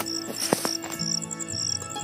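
Background music with sustained notes, over a steady high-pitched chirping of crickets. A brief rustle about half a second in.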